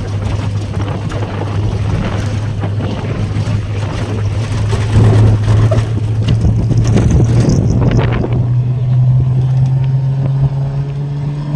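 Jeep engine running while driving, with a steady hum that rises gradually in pitch over the last few seconds as it speeds up. Wind rushes over the microphone, gusting loudest around the middle.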